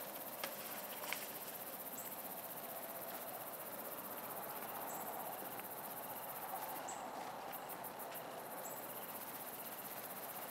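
Steady outdoor ambience: a high-pitched chorus of crickets over a soft rush of running water from the rain-swollen stream below the bridge. A quick run of faint high ticks comes about seven seconds in.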